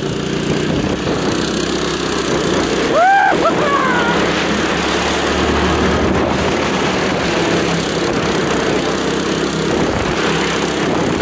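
Small gasoline engine of a motorized snowboard running at steady throttle as it carries its rider over snow, its pitch holding even, over a haze of board-on-snow and wind noise. A short gliding tone comes about three seconds in.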